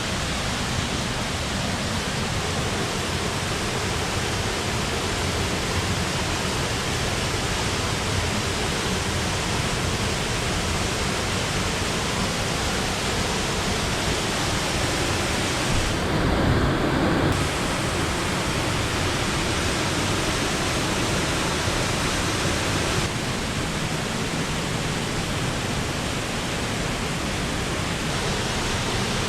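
Waterfall rushing steadily, a dense, even roar of falling water. Just past the middle it briefly turns deeper and duller for about a second.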